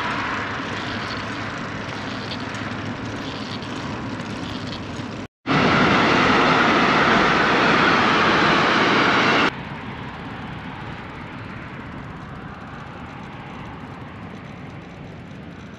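Steady rushing noise of road traffic and wind while cycling beside a road; in the loudest stretch in the middle a container freight train rolls past. The sound breaks off abruptly twice, about five seconds in and again after about nine and a half seconds, each time coming back at a different level.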